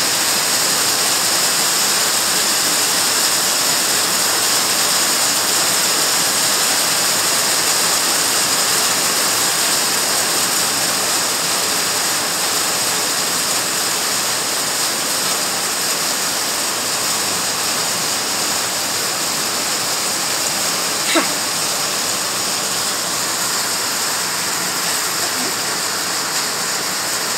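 Hail mixed with rain pelting down on a lawn and paved patio: a dense, steady hiss that eases slightly toward the end, with one sharp tick about three-quarters of the way through.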